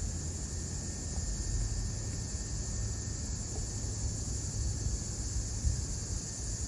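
Steady, high-pitched chorus of insects over a low rumble.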